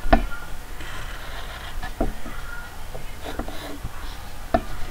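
Drawing on paper: scratchy strokes of a drawing tool with several sharp taps as it touches down.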